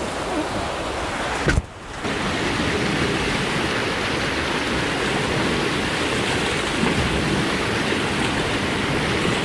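Floodwater rushing against and under a bridge in a steady, loud wash of water, with a brief break about a second and a half in.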